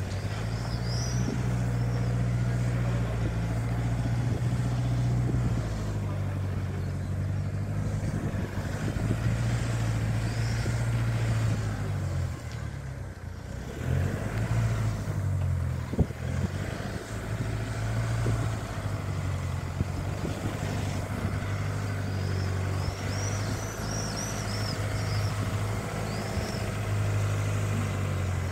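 Wind buffeting the phone's microphone with a heavy low rumble that rises and falls in gusts, easing for a moment midway. Small birds chirp faintly a few times, most of all near the end.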